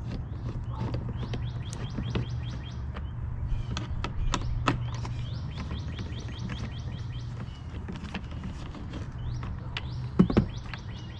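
Small birds chirping in quick runs of short, repeated calls over a steady low hum, with a few sharp knocks and clicks, the loudest about ten seconds in.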